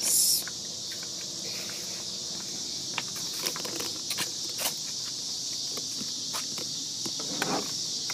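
Footsteps along an outdoor walkway, a scatter of light steps and knocks, over a steady high chirring of crickets.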